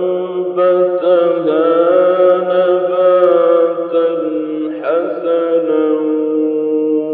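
A male Quran reciter chanting in the melodic mujawwad style, drawing out long sustained notes with ornamented turns and glides and only brief breaks between phrases.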